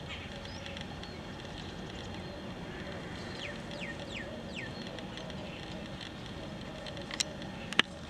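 Outdoor field ambience with a steady background hiss, three short falling bird chirps a little after three seconds in, and two sharp clicks near the end.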